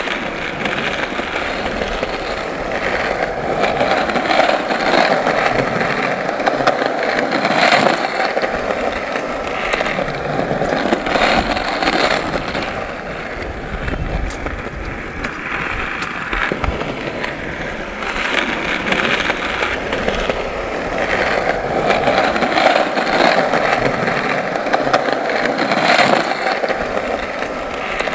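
Skateboard wheels rolling continuously over pavement, a steady grinding rumble that swells and eases slowly, with scattered sharp clicks as the wheels cross cracks and joints.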